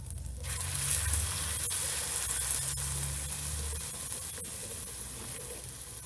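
Guajillo chile salsa hitting hot oil and browned chicharrón prensado in a clay cazuela. It starts sizzling about half a second in and slowly dies down as the salsa is stirred in with a wooden spoon.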